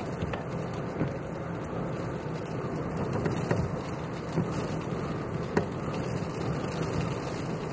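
Steady low rumble of a car heard from inside the cabin, with a few sharp clicks.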